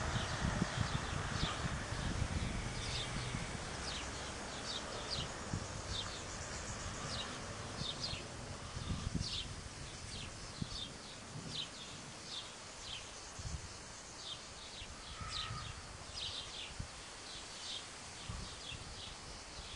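Small birds chirping over and over, about one or two short high chirps a second, with wind gusting on the microphone ahead of a thunderstorm; the gusts are stronger in the first half and ease off later.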